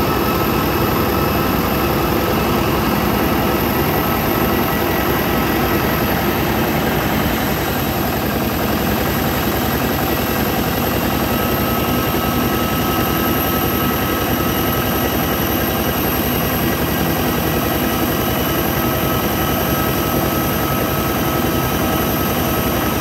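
Airbus A320-family airliner running on the ground: a steady jet whine over a low rumble, with a thin high whistle held throughout.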